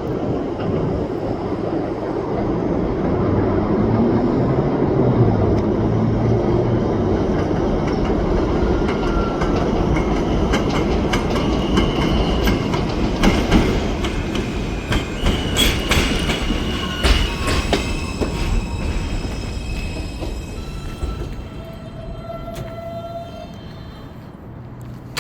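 R160A-2 subway train pulling into a station: a heavy running rumble with wheels clattering over rail joints and brief high wheel squeals. It grows quieter over the last few seconds as the train slows.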